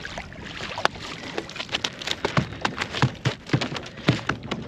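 A freshly landed flathead flapping and thrashing in the boat, making a quick irregular run of slaps and taps, several a second.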